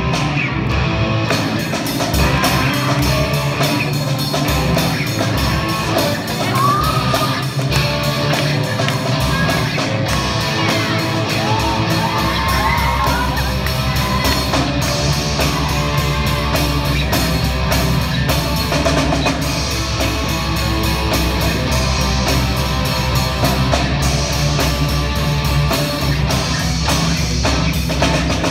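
Amateur rock band playing live: electric guitar over drum kit and keyboard in an instrumental passage, with guitar notes that slide in pitch. The low end fills out about twelve seconds in.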